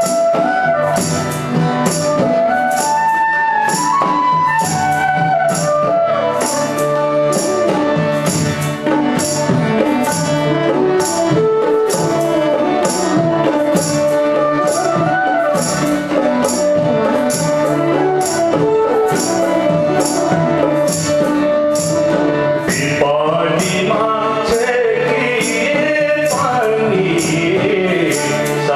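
Nepali folk song introduction: a bansuri bamboo flute plays the melody over a harmonium, with a steady jingling beat keeping time. A singing voice comes in near the end.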